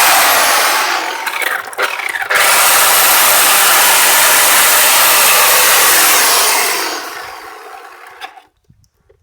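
Chainsaw running at full speed, cutting through a thick tree branch. It dips briefly about a second in, then runs at full speed again. Near the end it winds down with falling pitch and stops.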